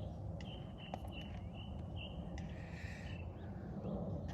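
Faint bird calls: a run of short, high chirps over a quiet low background.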